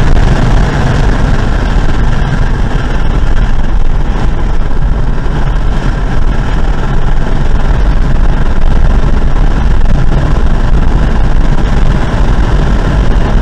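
Car driven at speed on a track, its engine running under load over heavy wind and road noise, loud and steady throughout.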